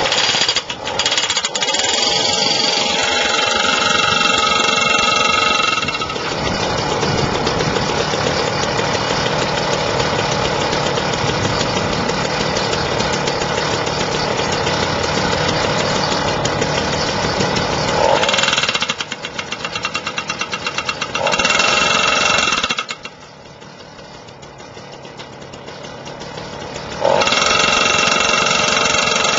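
Gas-powered jackhammer running and hammering rapidly, driving an Oz Post ground spike into the ground. It eases off twice in the last third, once to a low idle for a few seconds, then picks up again at full power.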